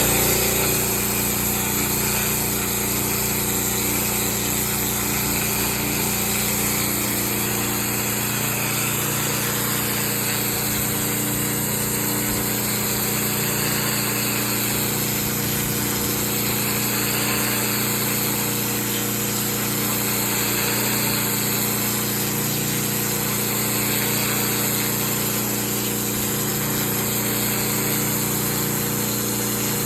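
Pressure washer running steadily, its motor humming under the strong hiss of the high-pressure water jet.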